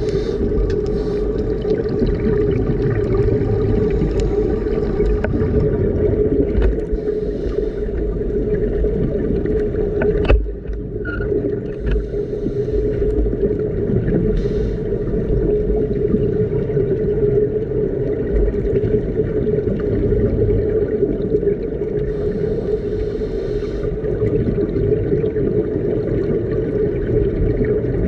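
Underwater recording of a boat's engine and propeller carried through the water: a steady hum with a strong low tone over a rumble. A single sharp click comes about ten seconds in.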